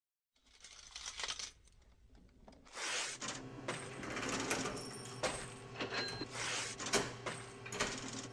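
Coins clinking and rattling in a shop cash register drawer, with sharp clicks and short metallic rings. A low steady hum comes in about three seconds in.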